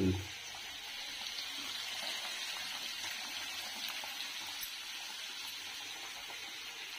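Fish curry cooking on a gas stove, giving a steady sizzle.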